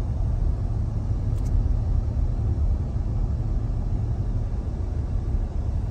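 Steady low road and engine rumble heard inside the cabin of a moving car.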